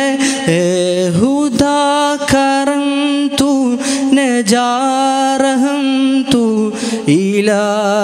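A man sings an Urdu hamd, a devotional song in praise of God, solo into a microphone. He draws out long ornamented notes that waver and bend in pitch, between lines of lyrics.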